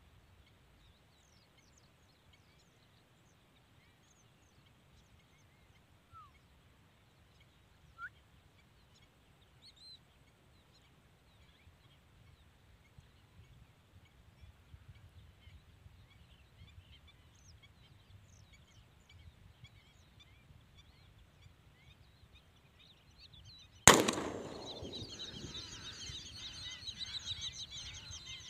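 Faint, scattered bird calls over quiet ambience, then near the end a single loud 12-gauge shotgun blast, followed at once by a flock of birds calling overhead.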